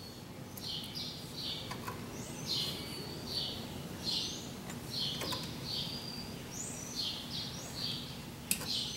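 Small birds chirping over and over, short high chirps about twice a second, with a few faint clicks.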